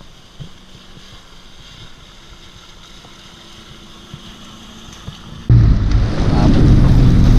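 A faint low rumble with a few light knocks, then about five and a half seconds in a sudden jump to the loud, deep running of an off-road vehicle's engine, with voices over it.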